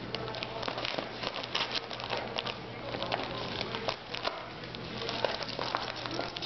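Wrapping paper crinkling and tearing as a small dog rips at a wrapped present, in quick irregular rustles and crackles.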